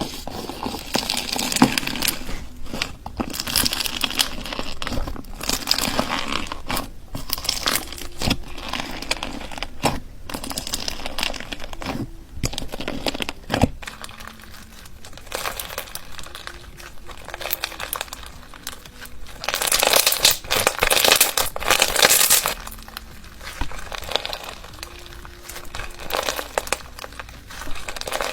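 Hands squishing, poking and stretching slime: a steady run of crackles and small pops, louder for a couple of seconds past the middle.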